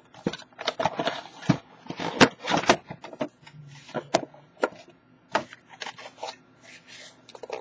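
Cardboard shipping box and shrink-wrapped packaging being handled: irregular rustling, scraping and crackling with sharp clicks as hands work the iPhone 4 box out of the carton.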